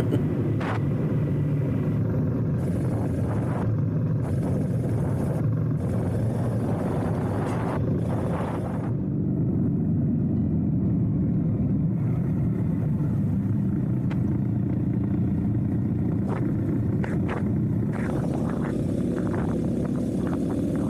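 A motorcycle riding along the road, heard onboard: a steady low drone of engine and wind noise, with short gusts of higher noise now and then.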